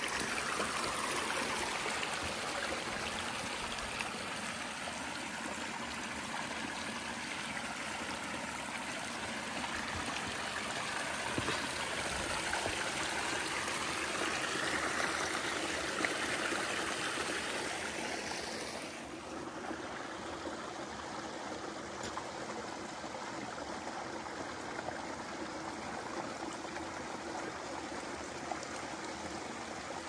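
River water flowing steadily. About two-thirds of the way through, the sound turns quieter and duller.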